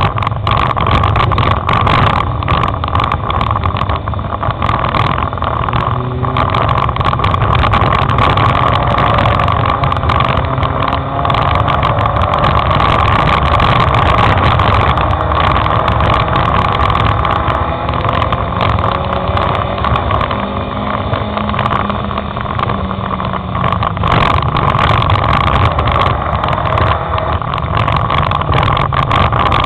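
Dirt-track race car engine running hard through a lap, heard from inside the car, its revs rising and falling with the driving. Frequent short clicks and rattles sound over it.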